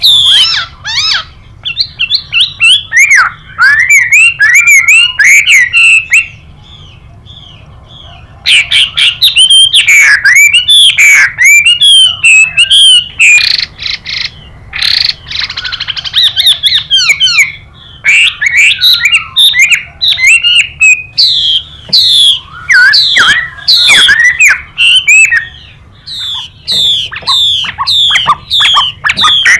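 Chinese hwamei singing fast, varied whistled phrases of rapid sweeping notes, mixed with a female hwamei's harsh hissing 'xùy' calls. There is a pause of about two seconds roughly a quarter of the way in.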